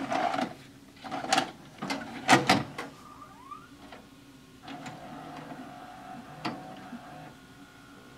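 A VHS cassette is pushed into the VCR side of a Zenith XBV713 DVD/VHS combo player, and the loading mechanism takes it in with a series of clicks and clunks, the loudest about two and a half seconds in. A short rising motor whine follows, then a quieter steady whirr of the tape transport as the deck goes into play.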